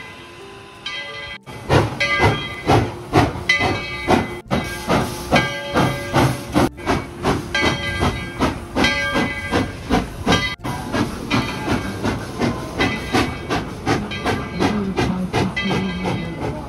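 Steam locomotive working hard at low speed, its exhaust chuffing in an even beat of about two to three a second with hissing steam. The chuffing starts suddenly about a second and a half in.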